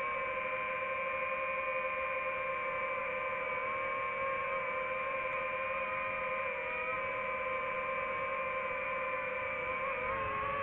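Drone's motors and propellers whining steadily in a stack of steady tones; the pitch dips briefly near the end as the motors change speed.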